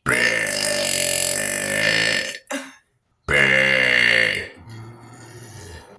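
A person burping deliberately: two long, loud, drawn-out belches, the first lasting about two seconds, the second starting about three seconds in and trailing off into a quieter tail.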